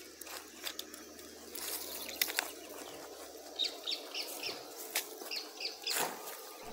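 Footsteps crunching and snapping on dry leaves and twigs, with a bird chirping a run of short, quick high notes about halfway through.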